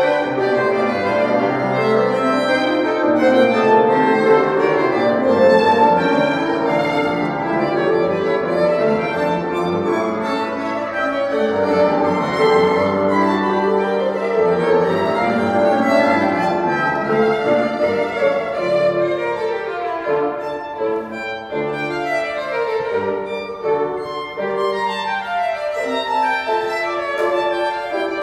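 Two violins playing a classical duet with piano accompaniment. The second half moves into quicker passages of running notes that climb and fall.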